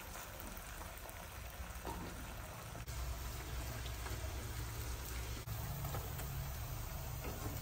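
Hot oil sizzling steadily as puffed sticky-rice cakes deep-fry in a frying pan, with a low rumble underneath from about three seconds in and a couple of faint clicks.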